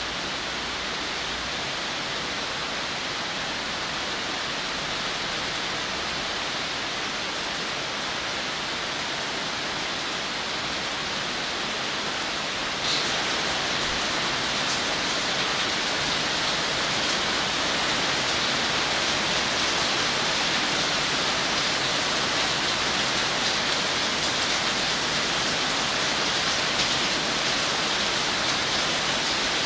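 Steady rain falling on leaves: a dense, even hiss of drops. A little under halfway through it grows slightly louder and brighter and stays so.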